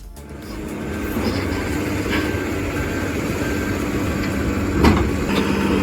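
Heavy machinery engine running steadily and growing louder over the first second, with a sharp clank nearly five seconds in.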